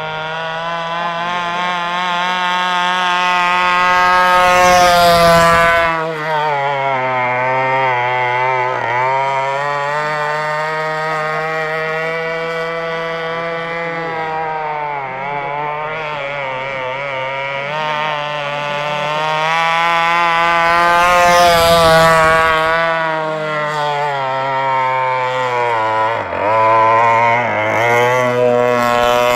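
Radio-controlled gas boat's small two-stroke petrol engine running at speed, a steady high-revving drone. It swells twice as the boat passes close, dropping in pitch each time as it runs away.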